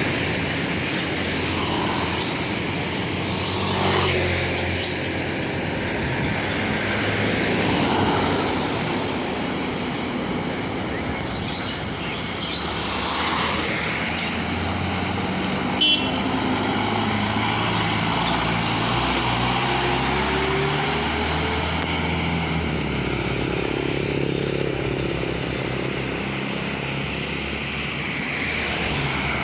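Road traffic with tour buses and other vehicles driving past, a steady run of engine and tyre noise that swells a few times as vehicles go by. A short sharp click about halfway through.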